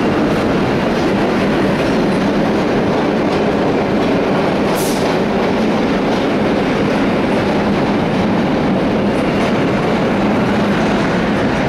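Vintage R9 subway cars pulling out of an underground station and passing close by: a steady loud rumble of wheels and motors with clickety-clack over the rail joints, and a short high squeal about five seconds in.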